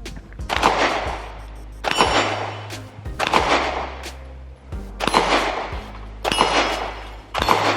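About six 9mm pistol shots from a Glock 17, spaced roughly a second and a half apart, each followed by the ring of steel plates on a dueling tree target being hit.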